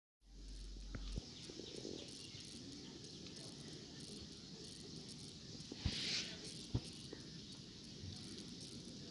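Faint outdoor background with a steady insect chirring, and a few light clicks as aimpon (five-metal alloy) bangles are picked up and handled, with a brief rustle about six seconds in.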